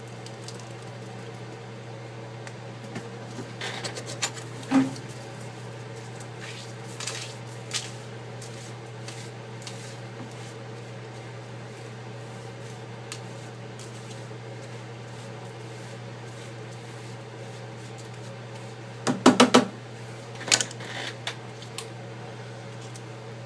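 Small hand tools clicking and scraping on an iPad's frame as broken glass and glue are cleared away: a few short scrapes about four seconds in, and a louder cluster of clicks near the end, over a steady low hum.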